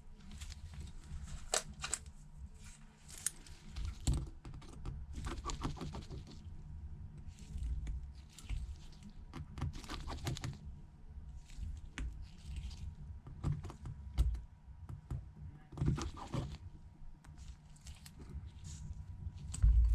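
Scattered light clicks and small scrapes of a precision screwdriver working tiny screws out of an iPhone 8's home button bracket, with the screws and tools being set down, over a steady low hum.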